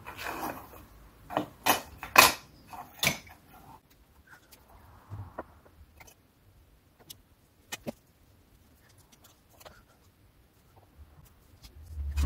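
Pencil and metal square being handled on a wooden board, giving a cluster of sharp taps and knocks in the first three seconds, then scattered faint ticks, and a low thump near the end.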